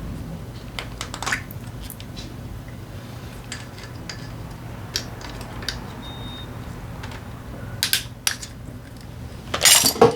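Irregular metallic clinks and taps of hand tools and engine parts being handled while taking apart a motorcycle engine, with a louder clatter near the end, over a steady low hum.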